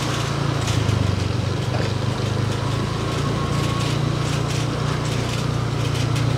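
Small motorbike engine running steadily at low speed, with a constant low hum.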